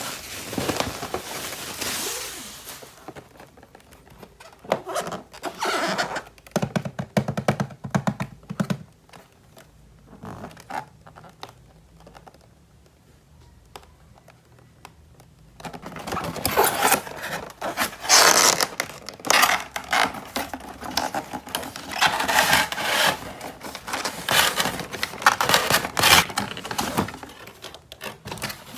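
Hands unboxing and handling plastic toys and their packaging: clicks, knocks and scraping. It turns sparse and quieter for a few seconds mid-way, then becomes a long, loud run of rapid clicking and rustling in the second half.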